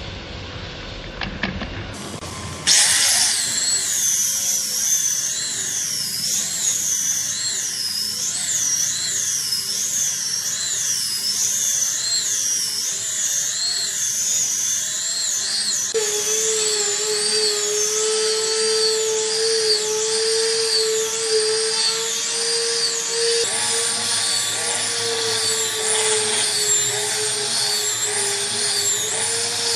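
Handheld power tool running at high speed, its whine rising and falling in pitch about once a second as it is worked back and forth over the wood, with a steady lower hum joining about halfway through.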